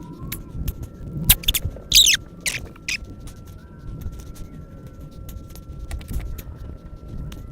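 Small metal tools clicking and scraping against a steel padlock while prying at the steel C-clip that holds its cylinder in, with a quick cluster of sharp clicks and rasping scrapes about one to three seconds in.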